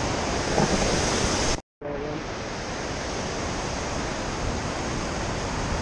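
Steady rushing of river water pouring through a dam outflow, with a brief total cut-out about a second and a half in.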